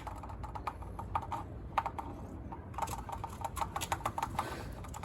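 Rapid, irregular clicking in clusters of quick ticks.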